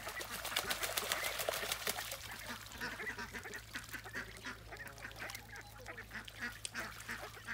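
Domestic ducks bathing in a small pool of water: quick, dense splashing for about the first two seconds, then lighter splashes with soft quacks.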